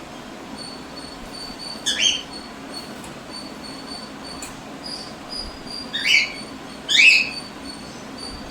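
Cockatiels calling: three short, loud, upward-sweeping squawks, one about two seconds in and two close together near the end. Under them is a faint high chirp repeating about twice a second.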